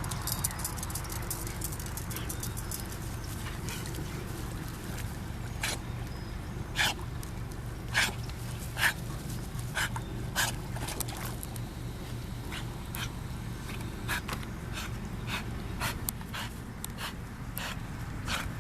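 A dog whimpering and yipping in many short, sharp, irregular cries, a few of them louder in the middle, over a steady low rumble.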